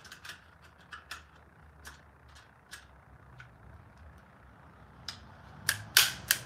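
Light metallic clicks and clinks of a chainsaw chain and small hand tools being handled, a few faint ones spread out, then several loud sharp clacks close together near the end.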